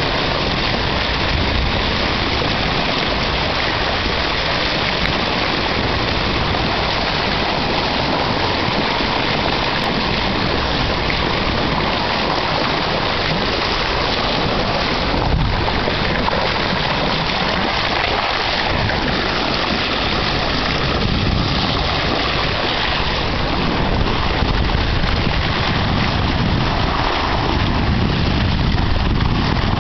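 Sea water rushing and splashing along a yacht's bow as it cuts through the waves, a loud steady hiss that grows a little louder near the end.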